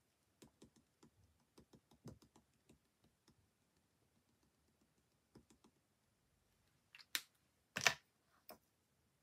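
Light, irregular taps of a paint-pen tip dabbing on card, then a few louder knocks near the end as the pen is set down and the glitter pot is handled.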